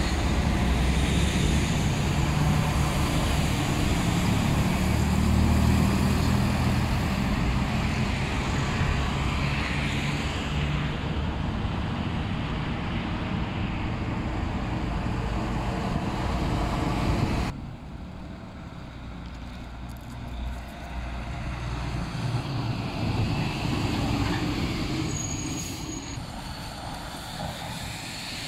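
Road traffic with heavy diesel trucks and cars passing, the trucks' engines making a loud low rumble for the first part. After a sudden cut, quieter traffic with tyres hissing on wet pavement.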